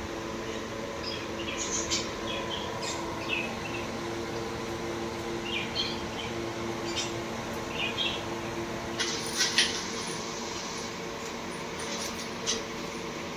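Evaporative air cooler running with a steady fan hum. Scattered short, high bird chirps come over it, busiest about nine seconds in and again near the end.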